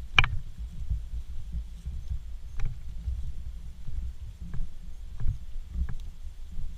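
Footsteps walking through dry field grass, picked up on a body-worn camera as irregular low thumps about one and a half a second, with light brushing and ticking, and one sharp click just after the start.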